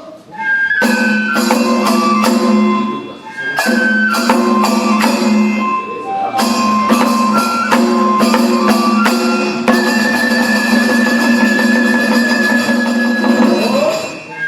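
Kagura festival accompaniment for a lion dance: a high wind melody of held notes that step in pitch, over steady drum strikes, pausing briefly twice between phrases.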